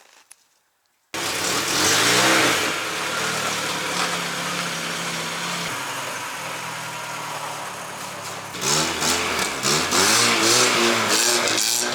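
A car engine running hard, starting abruptly about a second in: its pitch climbs, holds steady for a few seconds, then rises and falls repeatedly as it is revved.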